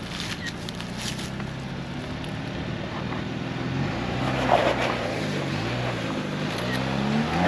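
Ford Bronco's engine crawling up a steep dirt-and-rock ledge off road. It runs steadily at first, then revs rise and fall several times in the second half as the driver works the throttle on the climb, with a few short crunches from the tyres on the dirt and rock.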